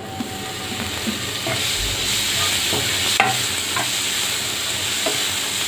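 Chopped tomatoes frying in hot oil with an onion and spice masala, sizzling steadily after building up over the first couple of seconds, with a spoon clicking against the pan a few times as it is stirred.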